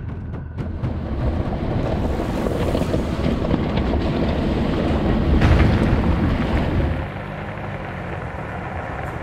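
A Toyota 4Runner driving past on a dirt and gravel road, a rumble of tyres and engine that grows to its loudest about five and a half seconds in and drops off at about seven seconds, with wind buffeting the microphone.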